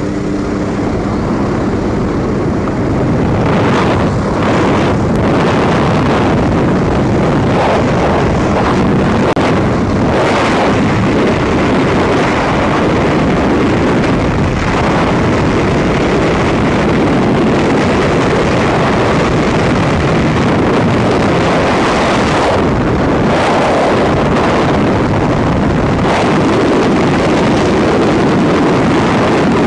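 Freefall wind rushing over the camera's microphone, loud and steady. In the first second the jump plane's engine hum is heard at the open door before the exit.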